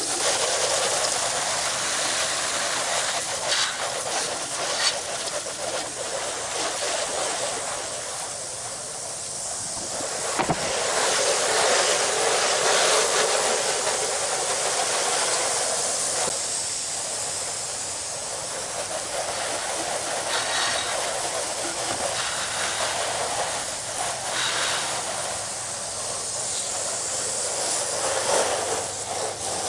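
Garden hose spray nozzle hissing as its water hits vinyl siding, rinsing off a bleach-and-soap house wash. The hiss swells and fades as the spray moves across the wall.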